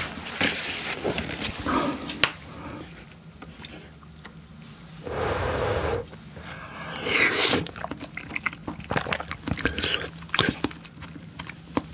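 Close-miked eating sounds: wet chewing and smacking with many sharp mouth clicks as a spoonful of soft steamed egg is eaten.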